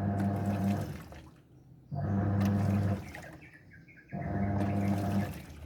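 Washing machine agitating in its wash cycle: the drum motor hums and water sloshes in bursts of about a second, three times, with short pauses between as the drum stops and turns again.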